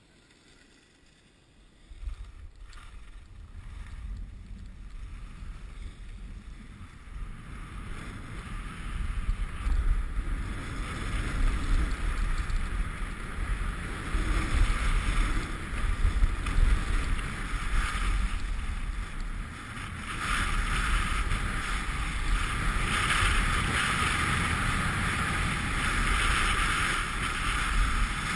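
Wind buffeting a moving camera's microphone in a low rumble, with the hiss of snow scraping under the rider. It starts suddenly about two seconds in and grows louder with speed, strongest over the last third.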